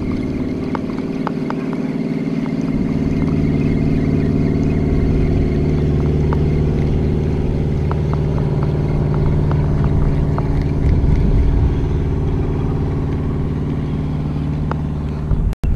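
A steady, low engine drone that holds the same pitch throughout, swelling slightly past the middle, with faint scattered ticks as a spinning fishing reel is cranked.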